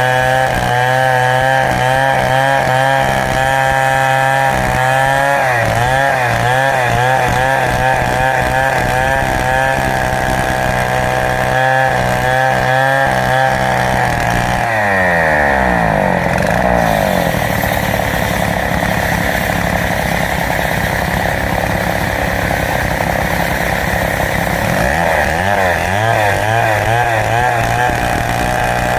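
Two-stroke Stihl chainsaw running at high revs while ripping lengthwise through a large teak log. The engine pitch wavers as the load on the chain changes and drops sharply about halfway through before steadying.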